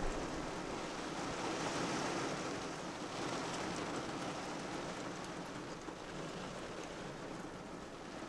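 Steady rain falling on a car, heard from inside the cabin as an even wash of noise.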